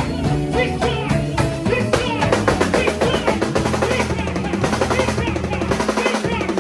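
A band playing live, with the drum kit to the fore: rapid snare strokes and rolls over bass and melody instruments. The low bass line drops out about six seconds in while the drumming goes on.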